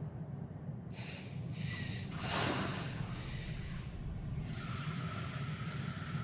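A woman's ragged breathing over a steady low rumble. Two short breaths about a second in, then a sharp, louder gasp at about two and a half seconds. From about four and a half seconds comes a long drawn breath with a thin whine in it.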